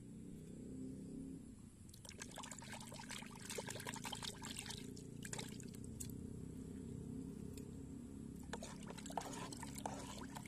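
Water splashing and sloshing in a black tub of pesticide spray mix, in two bouts: one starting about two seconds in and lasting about three seconds, and another near the end.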